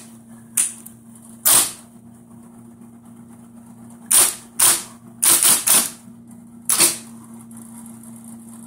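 IBM Selectric II electric typewriter striking keys: about eight sharp clacks at an uneven typing pace, several in quick succession near the middle. A steady low hum of its running motor lies underneath.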